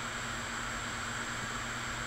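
Steady, even background hiss with a faint low hum underneath; no distinct events.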